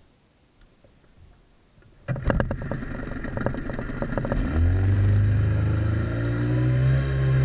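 Outboard jet motor on an inflatable boat starting up suddenly about two seconds in with a brief clatter. About four and a half seconds in its pitch rises as it throttles up, then it runs steadily.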